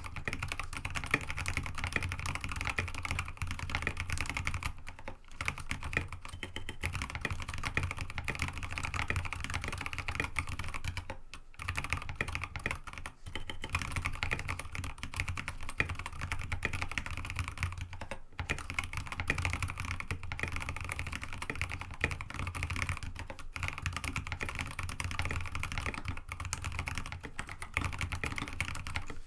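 Fast, continuous typing on a tenkeyless mechanical keyboard with Kailh Box Ancient Gray tactile switches and MA-profile keycaps on an aluminium plate, the clicks running together in a dense clatter with a few brief pauses.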